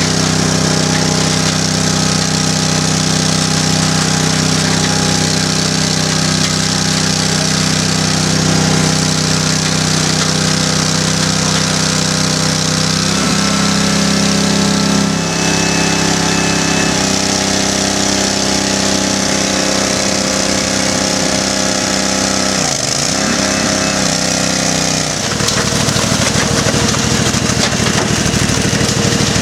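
Concrete mixer's engine running steadily. Its note shifts about halfway through and dips briefly near the end, then gives way to a rougher, noisier churning.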